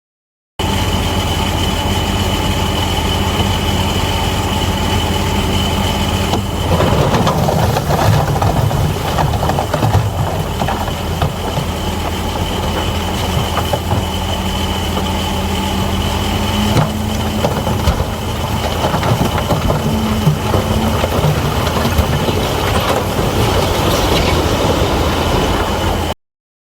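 Bulldozer's diesel engine running steadily with a thin high whine. About six seconds in it grows louder and rougher, with scattered knocks and clanks.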